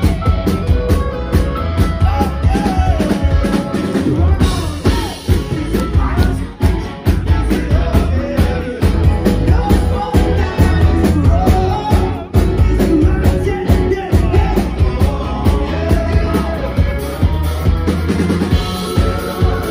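Live rock band playing loudly: drum kit keeping a steady beat under electric guitars, with a lead singer.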